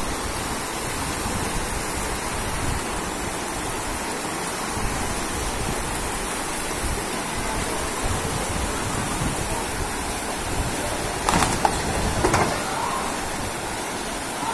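Steady rush of heavy rain and flooding water, with a few brief louder sounds about three-quarters of the way through.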